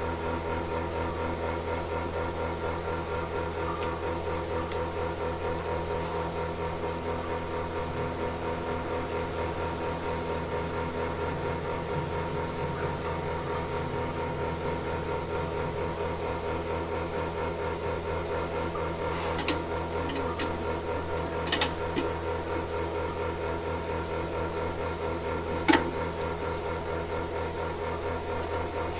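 Milking machine running: a steady motor hum with an even pulsing, and a few short sharp knocks about two-thirds of the way through and again near the end.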